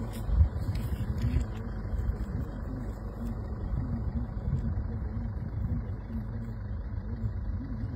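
Vehicle engine idling: a low, steady rumble, with one sharp thump about half a second in.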